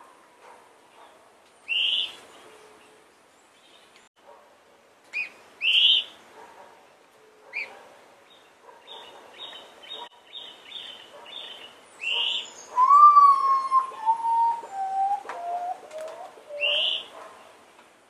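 Common potoo singing its series of mournful whistles, each note lower than the last, beginning about twelve seconds in and stepping down over some four seconds. Other birds give short sharp calls around it, with a fast chattering series just before.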